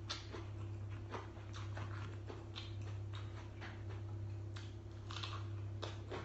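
Close-up mouth sounds of eating: chewing with short irregular clicks and crisp crunches as a raw green chili is bitten and chewed, the crunches clustering near the end. A steady low hum runs underneath.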